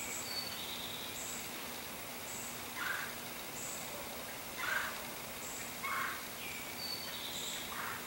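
Outdoor nature ambience with birds calling: four louder short calls spaced a second or two apart, a high thin chirp repeating about once a second, and a few softer high notes, over a steady background hiss.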